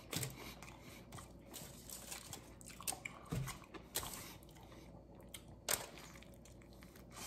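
A man chewing a mouthful of burrito, with faint mouth clicks, then biting into the burrito again a little past two-thirds of the way through.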